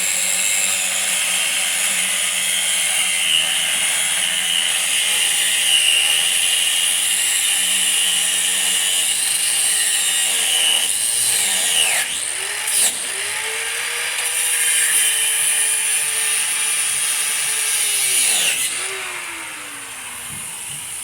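Power tool cutting through a steel truck frame rail, most likely an abrasive cut-off wheel: a steady loud whine with grinding hiss, its pitch dipping a couple of times as the wheel bites, then winding down near the end.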